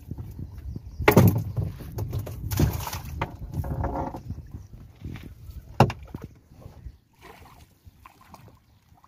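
Water sloshing and splashing around a small fishing boat, loudest in the first half, with one sharp knock on the boat a little past the middle.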